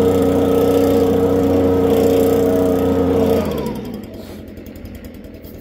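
Leaf blower running at a steady pitch, then switched off about three and a half seconds in, its pitch sliding down as it winds to a stop.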